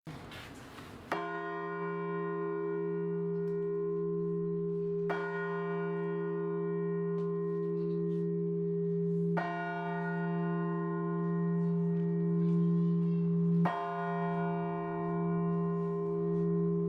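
A single large church bell of Russian bell ringing, struck slowly four times about four seconds apart, each stroke ringing on with a deep low hum until the next.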